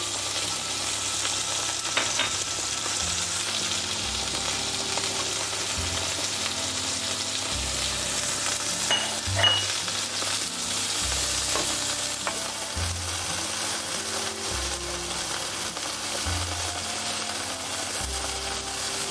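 Sirloin steaks, garlic cloves and sliced onion sizzling in hot fat on a griddle plate, a steady frying hiss, with a few light knocks of a utensil on the plate.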